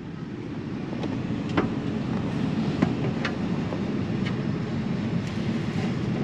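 Scattered light clicks and knocks of items being shifted and fitted into the space behind a pickup truck's seat, over a steady low rumble.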